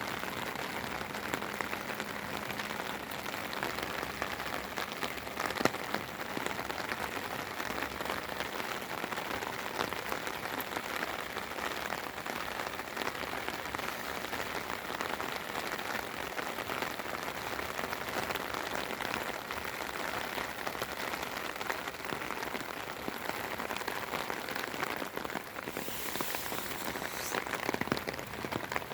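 Steady spring rain pattering, a dense hiss of countless small drop ticks with no break. Near the end it turns briefly hissier and brighter.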